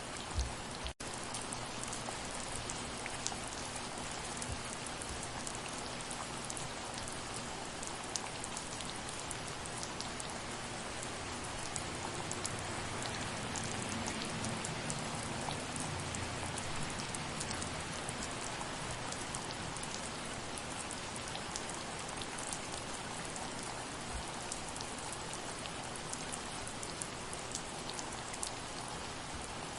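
Soft, steady rain: an even hiss of rainfall dotted with many small drop ticks. The sound cuts out for an instant about a second in.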